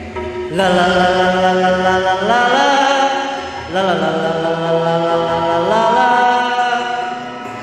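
A man singing through a handheld microphone and PA speakers, holding two long notes one after the other, each rising a step in pitch partway through before fading.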